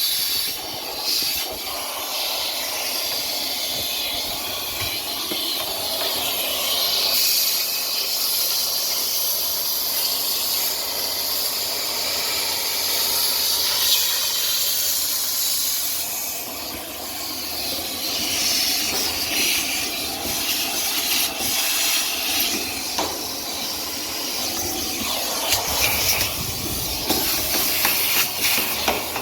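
Central vacuum hose sucking lint and dust out of a clothes dryer's blower housing: a steady rush of air whose pitch shifts as the nozzle moves, with occasional clicks of debris, more of them near the end.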